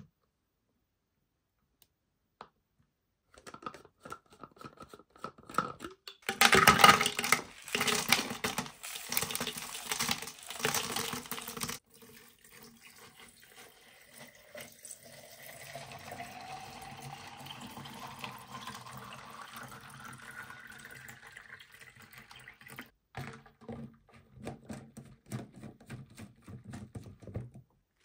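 Water poured into a plastic drinking bottle: a loud splashing stream first, then a steady pour whose tone rises in pitch as the bottle fills. Plastic clicks of the lid are heard before and after the pour.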